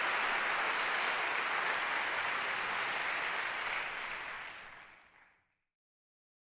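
Audience applause, a dense steady clatter of clapping that fades away over a second or so near the end.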